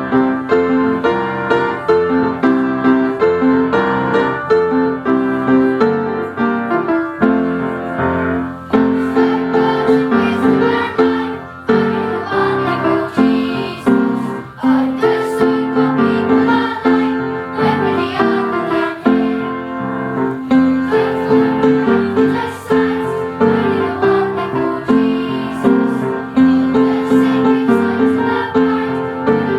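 Piano music playing, a steady, even run of notes.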